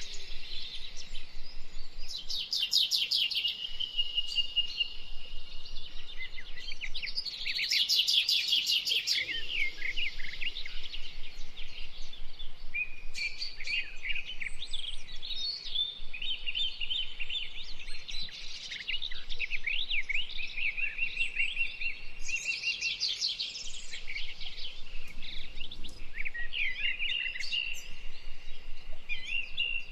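Bird singing: a long, varied song of fast rattling trills, sweeping chirps and short held whistled notes, broken by a few brief pauses.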